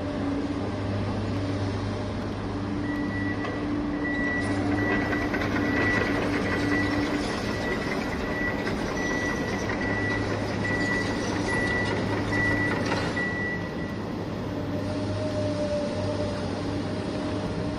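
Toy remote-control excavator running, its small electric motors and gears humming steadily, with a repeated high beep through most of the middle of the clip.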